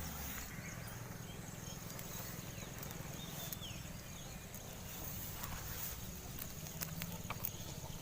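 Goats moving about, with a few scattered sharp clicks over a steady low rumble.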